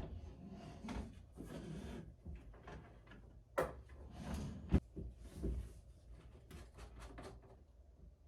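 Wooden objects being handled and set down on a desk: shuffling and scraping with several sharp wooden knocks, the loudest a little under five seconds in.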